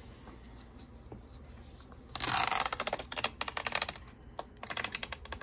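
Adhesive foot strip on an HP 15 laptop's bottom case being pried up and peeled away with a pry tool. The glue lets go in a loud, rapid crackle of clicks about two seconds in, then a shorter run of clicks near the end.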